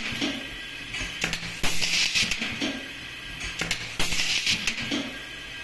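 Pneumatic auto-feed rivet gun setting pop rivets in a steady cycle, twice: a sharp click as each rivet is set, then about a second of air hiss as the gun cycles and the next rivet is fed in.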